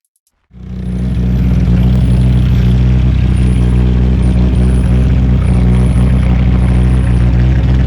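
Gebhardt C2 Le Mans race car's five-cylinder turbo engine running loud at steady revs, cutting in abruptly about half a second in.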